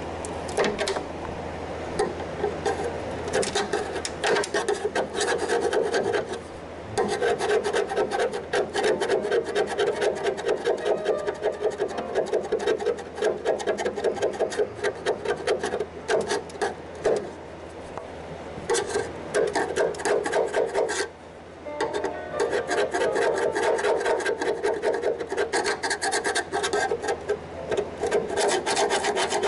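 A hand scraper scraping old caulking and paint off the steel cowl seam of a 1970 Pontiac LeMans wagon, metal grating on metal in rapid, continuous strokes. There are short pauses about seven and twenty-one seconds in.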